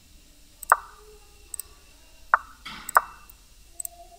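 Online chess site's piece-move sound effect, a short soft plop, heard three times as moves are played, with faint mouse clicks in between.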